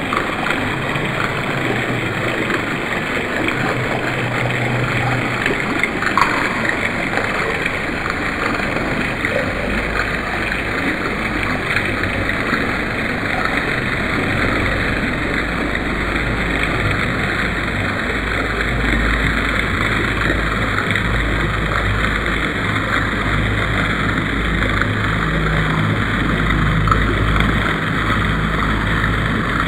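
Fountain water splashing and trickling steadily into a stone basin from small jets. From about a third of the way in, a low wind rumble on the microphone comes and goes underneath.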